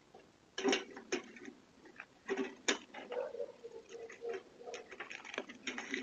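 Clicks, knocks and rustling of a mailbox being handled and its mail taken out, with a drawn-out scraping in the middle.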